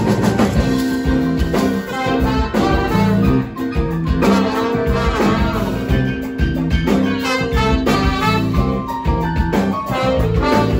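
Live band music: a horn section of saxophone, trumpet and trombone playing together over electric guitar, bass guitar and a steady drum beat.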